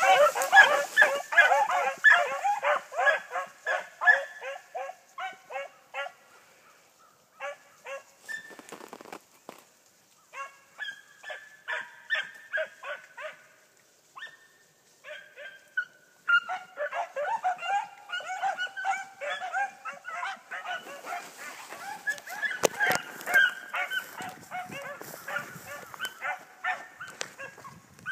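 A pack of hunting hounds baying in rapid, overlapping calls while running the trail of jumped quarry. The chorus thins to scattered calls about six seconds in, then builds back to a full pack cry past the middle.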